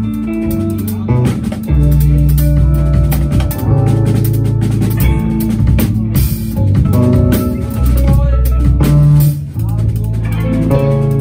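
Live band jamming: a drummer playing a Rockstroh drum kit, with bass drum and cymbal hits, under loud held bass notes that change every second or two, with guitar over the top.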